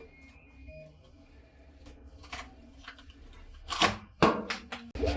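A few sharp plastic clicks and snaps as the old Ford badge is pried and peeled off a Ford Fiesta's tailgate, loudest in a quick cluster about four seconds in.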